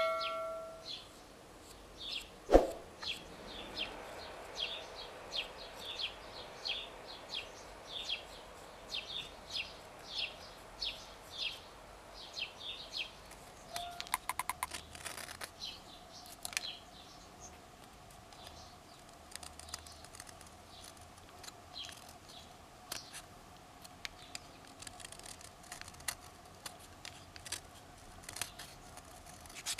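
Utility knife whittling a small wooden lure body. Short scraping cuts come about twice a second, then thin out to sparse, irregular cuts partway through. One sharp knock sounds early on, and a faint steady hum runs under the second half.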